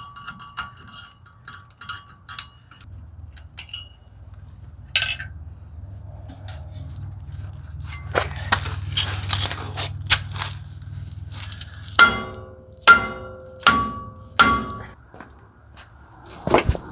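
Metal tools clinking and being handled, then four ringing blows of metal on metal about a second apart, which are the loudest sounds.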